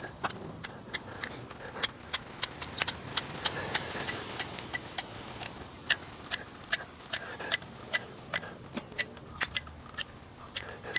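Repeated sharp, irregular clicks from a caulk gun being pumped as commercial grade sealant is dispensed, a few clicks a second.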